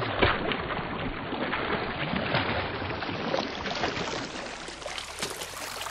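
Seawater lapping and splashing against shoreline rocks: a steady wash of small waves with repeated short splashes.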